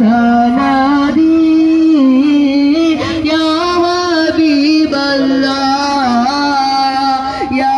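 A Prophet-praise devotional song sung by one voice in long, ornamented held notes that slide between pitches, played loud over the jeep's roof-mounted loudspeakers.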